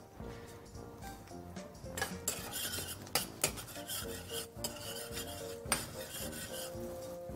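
A metal utensil stirring and scraping chopped garlic in butter around a stainless steel pan, with irregular clinks of metal on metal.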